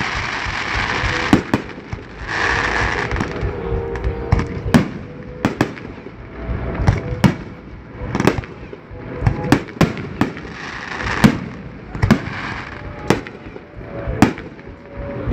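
Aerial fireworks shells bursting in an uneven series of loud bangs, more than a dozen, with stretches of hiss and crackle between them.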